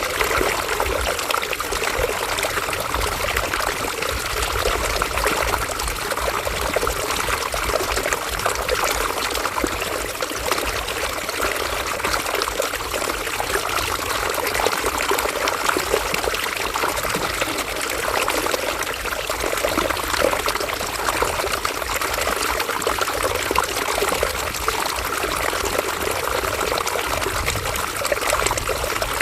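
River water flowing and trickling steadily over stones.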